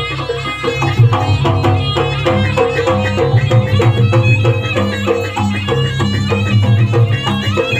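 Jaranan accompaniment music: a reedy wind instrument plays a stepping melody over steady drumming.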